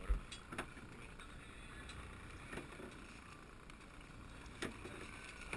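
Low steady rumble of wind and water around a small boat at sea, with a sharp thump at the start and a few light knocks on the boat scattered through.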